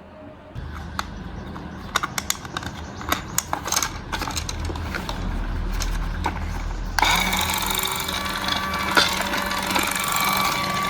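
Toy RC car's small electric motor and gears running steadily with a low hum, over scattered clicks of plastic being handled. About seven seconds in it turns into a louder, higher whirring.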